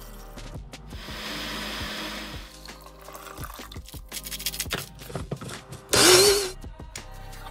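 Ninja Professional blender running in a short burst about six seconds in, the loudest sound, its motor pitch rising as it spins up while blending lemon purée. About a second in, water pours into a saucepan for about a second and a half. Background music throughout.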